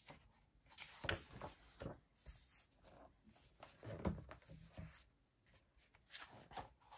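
Pages of a hardcover book being turned and handled: paper rustling and brushing in a few short bursts, the loudest about four seconds in.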